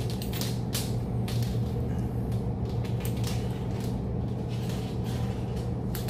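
Needle-nose pliers clicking and stiff steel piano wire scraping and ticking as a heavy wire leader is twisted and wrapped by hand: a run of short, irregular ticks and rasps over a steady low hum.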